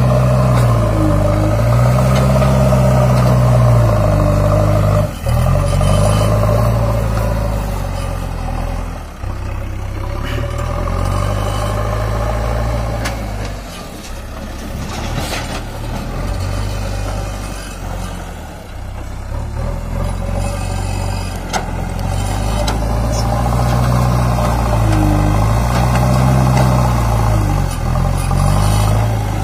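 JCB 3DX backhoe loader's diesel engine working under load, its pitch rising and falling again and again as the front bucket digs into soil and lifts it, with a few brief knocks along the way.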